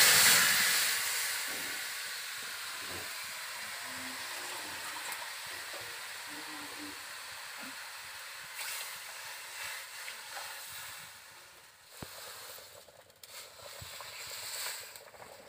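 Water poured into a hot iron kadai of fried spiced vegetables hisses loudly as it hits the hot pan, then fades within about two seconds into a steady, quieter sizzling hiss as the curry liquid heats over the fire. Near the end the hiss thins out and becomes uneven.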